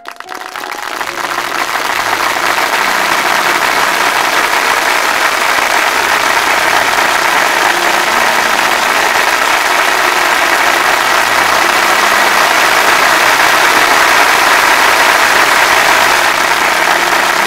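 Theatre audience applauding, swelling over the first two seconds and then holding steady.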